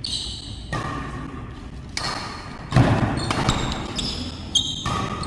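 Badminton play on an indoor court: short squeaks of shoes on the court floor and sharp racket hits on the shuttlecock, the loudest hit a little under three seconds in.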